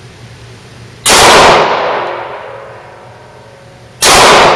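Two pistol shots about three seconds apart from a semi-automatic handgun fired in an indoor shooting range, each very loud shot followed by a long echo that dies away over a second or so.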